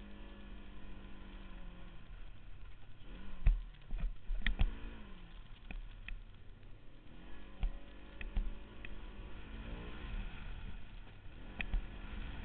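Side-by-side UTV's engine running across a dirt track, its pitch rising and falling with the throttle. Sharp knocks and rattles come through it, the loudest about three and a half seconds in.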